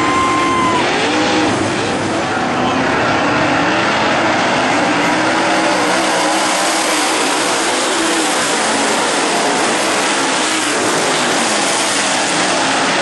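Dirt late model race cars' V8 engines racing around the track, their pitch rising and falling as they accelerate and pass.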